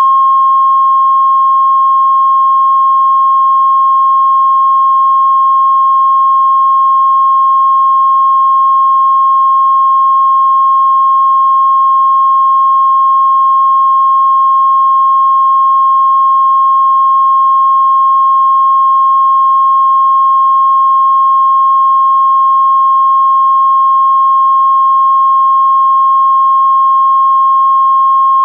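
Steady electronic test tone of about 1 kHz, held unchanged at a loud level: a line-up reference tone of the kind recorded at the head of a video tape for setting audio levels.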